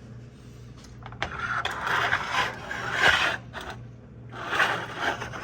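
Scraping and rustling handling noise in two bursts, the first about two seconds long, the second about a second, over a low steady hum.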